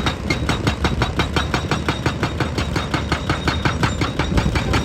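Heavy machinery hammering rapidly and evenly, about eight knocks a second, over a steady diesel engine rumble.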